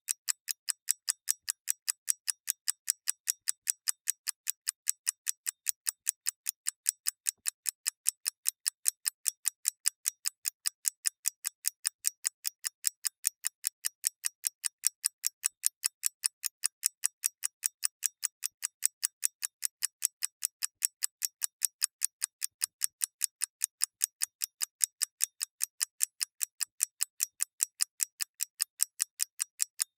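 Clock ticking: a fast, even run of light, sharp ticks, roughly three a second, with no variation in pace.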